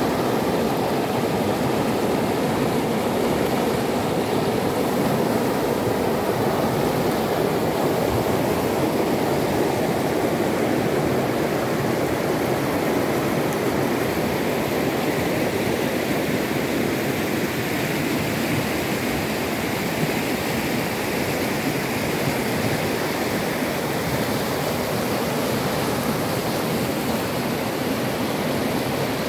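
Mountain river rushing over rocks and through whitewater rapids: a steady, full rush of water.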